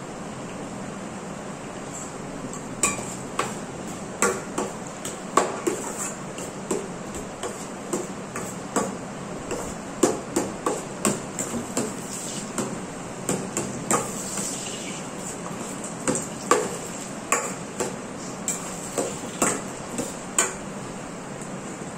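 Metal spoon clinking and scraping against a stainless steel pan while stirring onion and tomato: irregular knocks, at times several a second, over a steady hiss.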